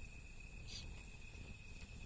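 Steady high-pitched insect trilling over a low background hiss, with a single short crackle from a wood fire a little way in.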